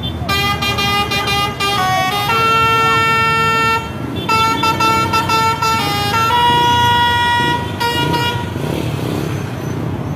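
Lorry air horns blasting in a sequence of notes: a few quick stuttering toots, then long held blasts of several tones together that step up and down in pitch from note to note, like a tune. They stop about 8 seconds in.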